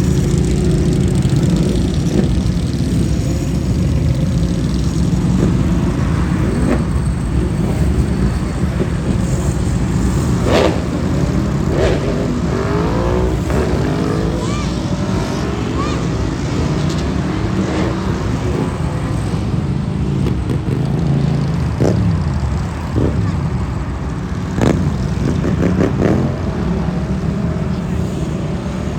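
Motorcycle engine running with a steady low rumble, with several sharp knocks over it.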